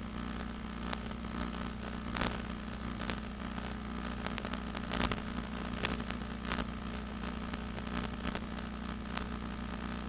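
Hexcopter's electric motors and propellers humming steadily in cruise, heard over the FPV link with a thin high whistle and scattered brief crackles.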